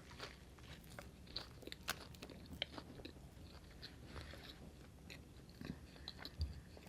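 A person chewing and biting food close to the microphone: faint, scattered crunches and wet mouth clicks.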